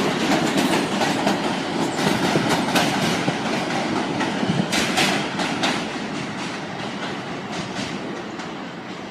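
New York City Subway train running along the track, its wheels clicking over the rail joints. The sound fades steadily over the last few seconds as the train moves away.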